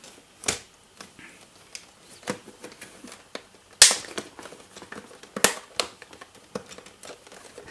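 Plastic clicks and knocks as a snap-fit compartment cover on the underside of an Epson HX-20 portable computer is pressed and pried loose, with faint handling rustle between. Two sharp clicks, about four and five and a half seconds in, are the loudest.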